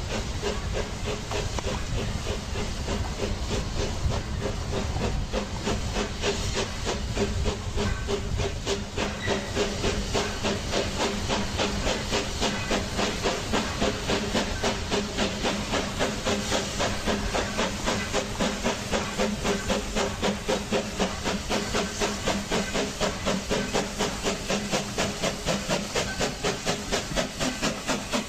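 Steam locomotive running, with hissing steam and a rhythmic chuff of exhaust beats, about three a second, that grow more distinct toward the end.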